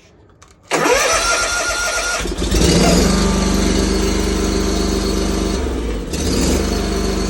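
A lawn mower's electric starter cranks the engine for about a second and a half, then the engine catches and runs steadily. Its note changes briefly about six seconds in. It starts only with the safety switch held in, because the switch has a bad contactor.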